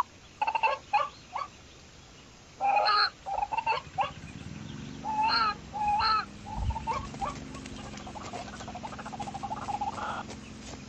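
Pheasant calls, short pitched clucks repeated in clusters, which stop shortly before the end. From about four seconds in, a steady low hum runs underneath.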